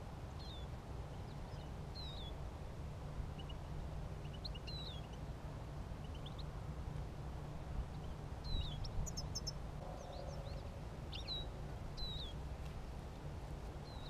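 Small finches giving short, scattered chirping calls, several birds at once, over a steady low rumble.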